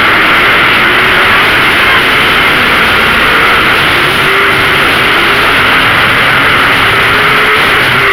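Lightning Late Model race cars running laps, a loud, steady engine din with faint engine notes rising and falling as cars pass.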